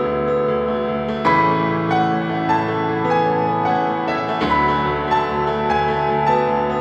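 Solo piano music: a melody over held chords, with the chord changing about a second in and again past the middle.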